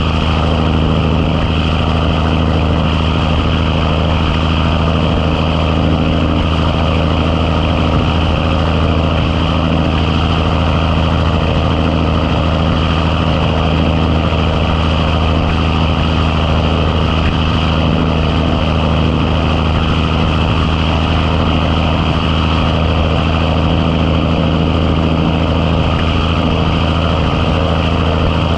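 Big Cam Cummins inline-six diesel in a 1986 Ford LT9000 truck running at steady engine speed, its deep note holding an even pitch throughout.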